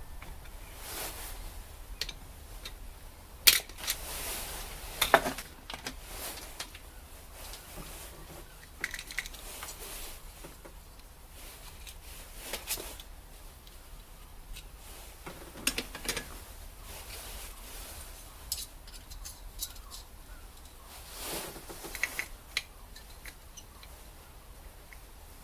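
Small metal carburettor parts and tools being handled while the old floats come out of a Zenith Stromberg carburettor: scattered clicks, taps and light scraping, the sharpest about three and a half and five seconds in.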